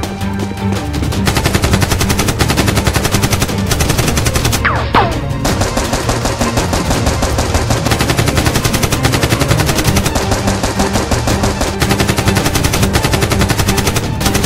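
Rapid automatic gunfire sound effects, dubbed over Nerf blasters, starting about a second in and running in fast bursts over background music. A brief falling whistle cuts through about five seconds in.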